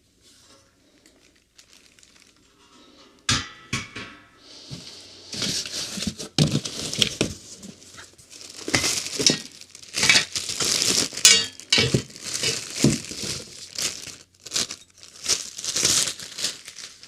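Packaging crinkling and rustling in irregular bursts as server-rack parts are unpacked from their box, with a sharp knock a little after three seconds and a few more knocks later.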